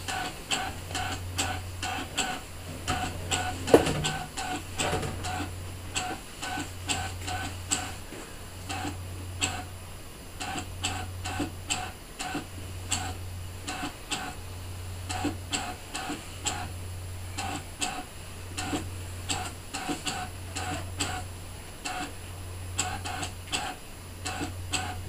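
Brother ScanNCut DX SDX1200 cutting machine running a foiling pass: its carriage motors make quick whirring moves full of rapid clicks. Beneath them a low hum pulses on and off about every second and a half, and there is one sharper knock about four seconds in.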